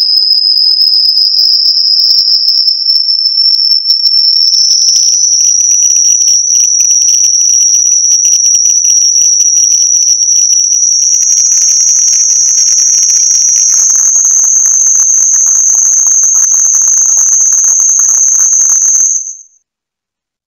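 High-pitched electronic test tone from a hearing-test frequency sweep: a single pure tone, loud and steady, climbing slowly in small steps, with a faint crackly hiss beneath it in the later part. It cuts off suddenly near the end.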